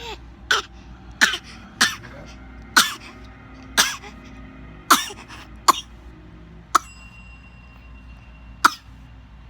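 A four-month-old baby fake coughing: about nine short, deliberate little coughs, roughly a second apart, with a longer pause before the last one. These are put-on coughs, not a sign of illness.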